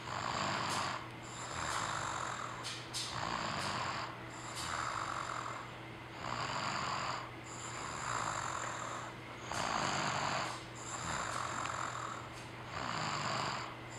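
A sleeping child snoring lightly, one noisy breath about every one and a half to two seconds in a steady rhythm.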